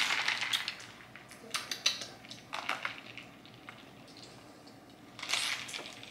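A person drinking from a plastic squeeze sports bottle: several separate sips and swallows with pauses between, the loudest at the start and one more near the end.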